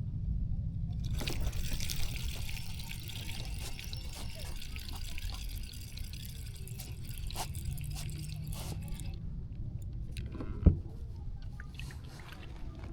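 Water splashing and dripping with many fine patters for several seconds, then a single sharp knock near the end.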